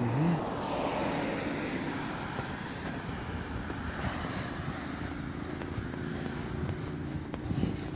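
A distant passing vehicle: a steady engine-and-road noise that swells over the first few seconds, then settles into a low background hum.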